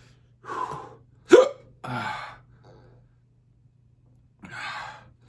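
A man hiccuping among short breathy exhales, with one sharp, loud hiccup about a second and a half in. The hiccups come from the burn of an extremely spicy hot-sauce candy challenge.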